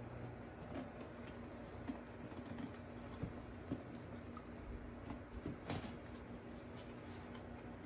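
Faint handling sounds of paper and card: light rustling with a few small clicks and taps, over a low steady hum.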